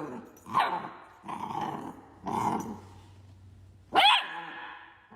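A dog vocalizing: a run of short growling grumbles, then a louder, higher-pitched bark about four seconds in.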